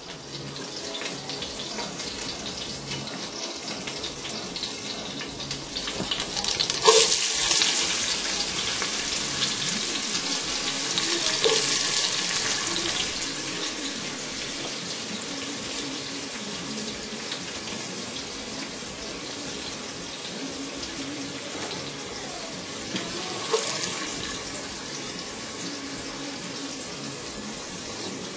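Steady hissing noise that runs throughout, swelling suddenly louder about seven seconds in, again around twelve seconds, and briefly near the end.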